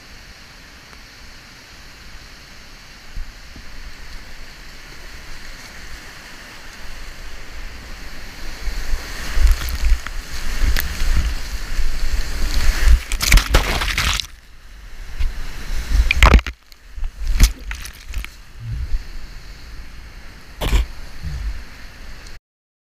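Whitewater kayak running a multi-tier waterfall: the river's steady rush grows louder as the boat nears the drop, then loud crashing and splashing of whitewater over the kayak for several seconds around the middle, easing back to fast rushing water before the sound cuts off suddenly near the end.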